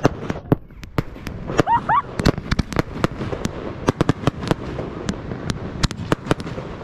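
A 260-shot consumer fireworks cake firing its finale: a rapid, irregular string of sharp cracks and pops, several a second.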